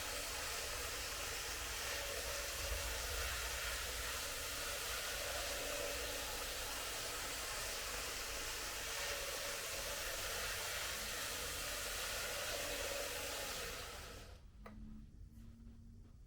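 Tomix N-scale model train running on its track: a steady whirring hiss from the motor and wheels, with a faint hum. It cuts off about fourteen seconds in.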